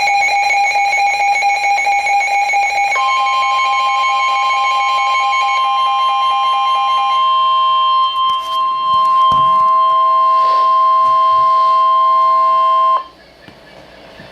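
Emergency Alert System alarm on NOAA Weather Radio for a severe thunderstorm warning. A warbling alert tone runs for the first several seconds and overlaps the steady weather-radio warning alarm tone, which starts about three seconds in. The warning tone then cuts off abruptly about thirteen seconds in.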